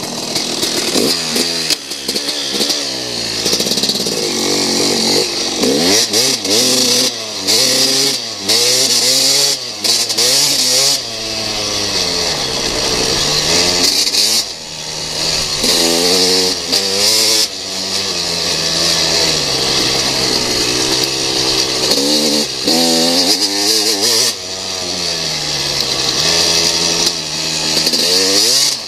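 Dirt bike engine being ridden hard, revving up and dropping back again and again as the rider accelerates, shifts and rolls off for the trail. A loud hiss of rushing wind over the goggle-mounted camera rises and falls with speed.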